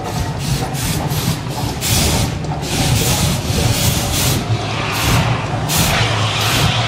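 Fire-show flame jets going off in short, repeated whooshing bursts, roughly two a second, over a steady low rumble.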